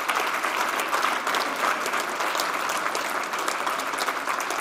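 A large audience applauding, many hands clapping at once in a dense, steady patter.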